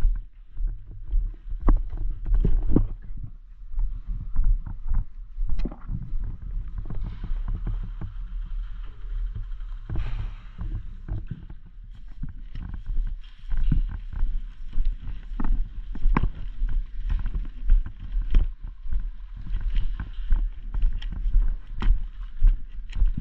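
Footsteps and the rustle and knock of gear picked up by a body-worn action camera while walking over rough ground. There are uneven low thumps about once or twice a second, mixed with scattered sharp clicks and crunches.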